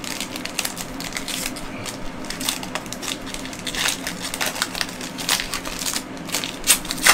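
A Panini Prizm Draft Picks trading-card pack's wrapper being torn open and crinkled by hand: a run of irregular crackles and rustles with sharp clicks.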